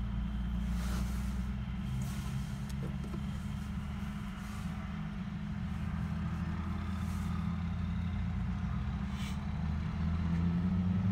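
Steady low engine drone from idling vehicles, heard from inside a car, growing a little louder near the end.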